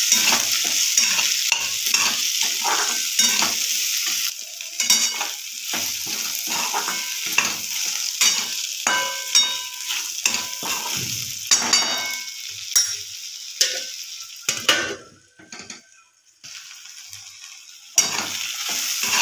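Okra stir-fry sizzling in a metal kadhai while a metal spatula scrapes and knocks against the pan in repeated stirring strokes, some with a short metallic ring. The sizzle thins out partway through and there is a brief lull near the end before the stirring starts again.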